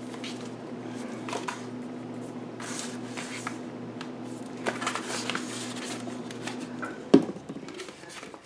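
Light rustling and handling of paper and a plastic glue bottle over a steady low hum. About seven seconds in there is one sharp knock as the glue bottle is set down on the tabletop, and the hum stops at the same moment.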